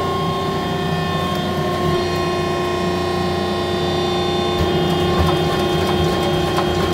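Press brake's drive motor running with a steady hum and several steady whining tones while the ram is lowered toward the material. A few faint clicks come in the last couple of seconds.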